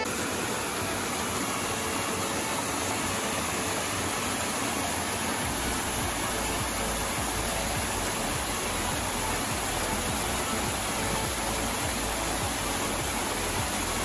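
Waterfall's steady rush of falling water, an even hiss with no pitch or rhythm; a deeper low rumble fills in about five seconds in.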